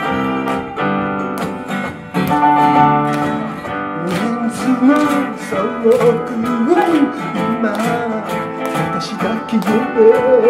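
Live acoustic band music: acoustic guitars strumming and picking over an electric bass in an instrumental passage between sung lines.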